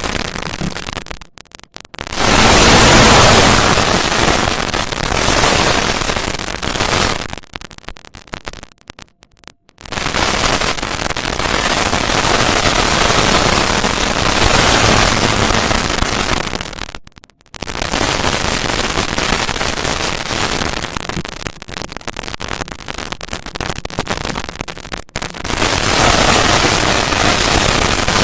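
Harsh, loud crackling static-like noise of a synthetic 'void' sound effect, filling the whole range from deep rumble to hiss. It cuts out abruptly for short gaps about a second and a half in, for about two seconds around eight to ten seconds in, and briefly near seventeen and twenty-five seconds.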